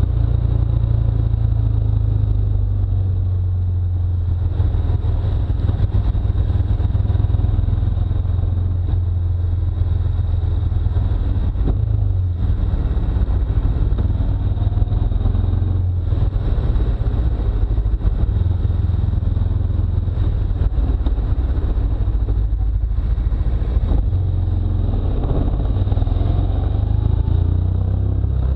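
Heavy wind buffeting and road rumble on an action camera's microphone during a fast ride at about 40 to 65 km/h, a deep uneven roar with a thin steady whine above it.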